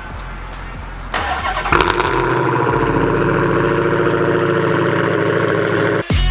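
Dodge Challenger SRT Hellcat's supercharged 6.2-litre V8 starting up about a second in, flaring loud, then running at a steady, loud idle until it cuts off abruptly near the end.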